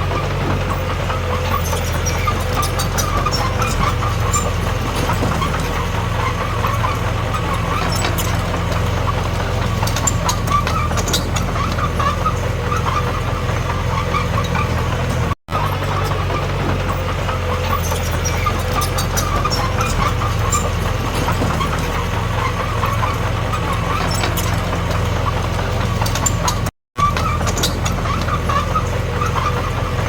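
Diesel engine of a small Komatsu D21P bulldozer running steadily under work, with scattered light clicks. The sound cuts out for an instant twice.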